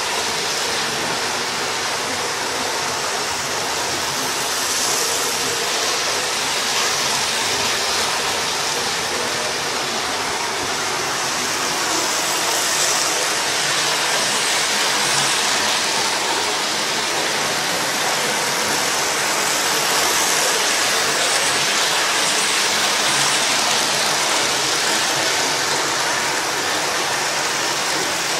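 Steady rushing rumble of a Hornby model train running round its track, heard up close through a camera riding on the train.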